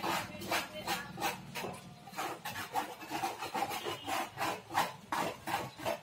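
A mason's hand tool rubbing and scraping back and forth over wet cement mortar as a plaster molding is shaped, about three strokes a second.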